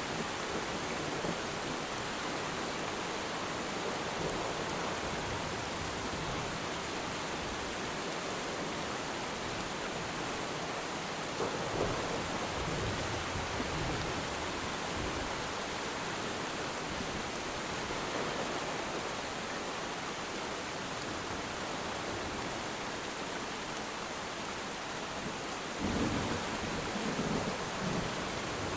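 Steady rain falling on water, with deep rumbles of distant thunder swelling up about midway and again near the end.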